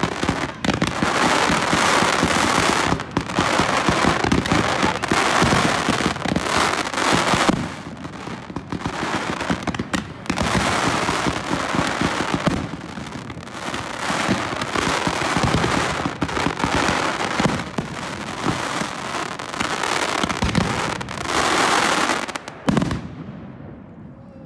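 Dense barrage of aerial fireworks bursting overhead: rapid, overlapping bangs and crackle with hardly a gap, dying down near the end.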